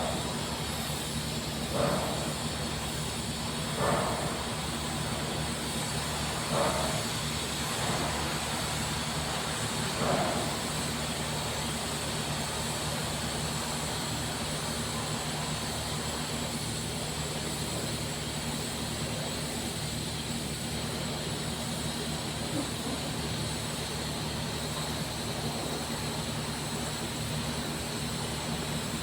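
TIG welding arc on 316L stainless steel during the capping pass: a steady buzzing hum with a high hiss. In the first ten seconds there are short louder pulses about every two seconds.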